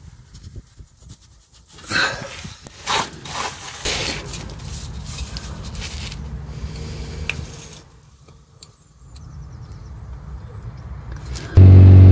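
A few clicks and knocks as the tube and aerosol can are handled, then a steady hiss of DPF cleaner spraying from an aerosol can through a tube into the diesel particulate filter. Near the end the van's diesel engine cuts in loud, revving at about 3,000 rpm.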